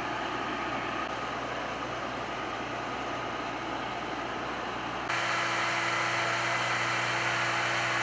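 Engines of parked fire apparatus idling in a steady drone. About five seconds in it cuts abruptly to a louder, steadier engine drone with a low hum.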